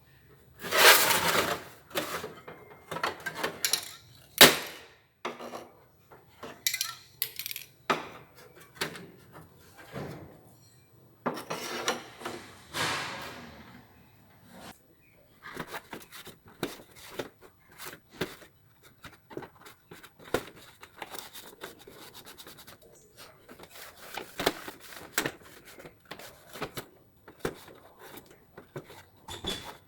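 Metal clinking and clattering with a few longer spells of scraping: an old rusted tool box and metal tools being handled. Irregular knocks throughout, with the loudest clanks in the first few seconds and scraping spells near the start, in the middle and about three quarters of the way through.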